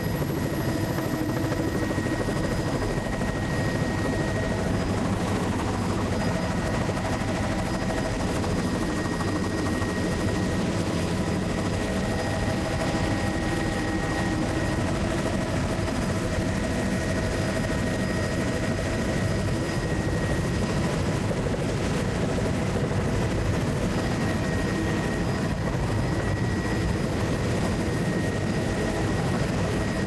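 Steady drone of a light aircraft's engine heard from inside the cabin in flight: a dense low rumble with several steady whining tones above it, unchanging throughout.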